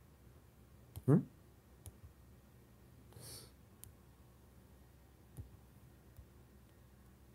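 Quiet room with a few faint taps on a tablet, one short sharp sound falling quickly in pitch about a second in, and a soft breath a couple of seconds later.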